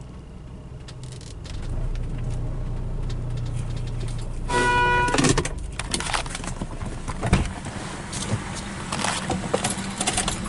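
Automatic car wash machinery running, heard from inside the car: a steady low hum that grows louder about two seconds in. Near the middle comes a short electronic beep, and after it scattered clicks and knocks, one louder thump among them.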